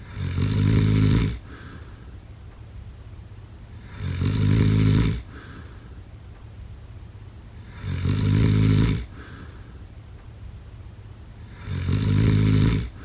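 A sleeper snoring: four long, rough snores about one every four seconds, each followed by a faint breath out.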